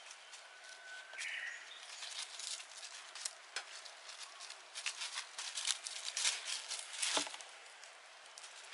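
Dry leaf litter crackling and rustling under an Italian Greyhound's paws as it walks and sniffs through the fallen leaves, with one louder crunch about seven seconds in. A brief high whistle-like tone sounds about a second in.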